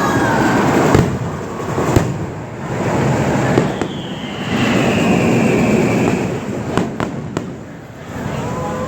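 Fireworks display: a continuous rumble and crackle of bursting shells, punctuated by several sharp bangs.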